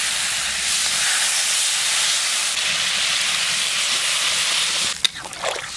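Water poured from a jug into a hot kadai of fried potatoes and fish in spice masala, hissing and sizzling steadily as it hits the hot oil. The hiss drops away sharply about five seconds in, with a couple of light knocks.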